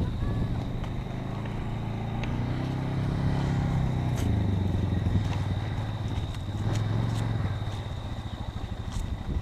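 A small vehicle engine running, its pitch rising and falling as it speeds up and slows down, with a few light clicks and knocks.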